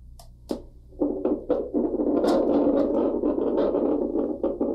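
Handheld vascular Doppler: two clicks as it is switched on, then from about a second in its loudspeaker gives a steady rushing static with crackles as the gelled probe is handled, with no pulse picked up yet.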